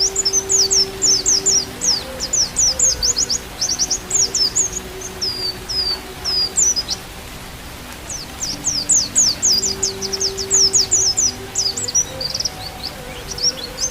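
Pleci (white-eye) song: quick runs of high, sharply falling chirps, with a short pause about halfway through, over a slow, low bamboo flute (seruling) melody of long held notes.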